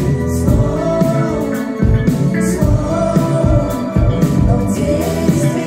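Live pop-rock band playing a song with singing, drums, bass, keyboard and electric guitar, heard from within the concert crowd. The drum hits keep a steady beat under sustained bass and melody lines.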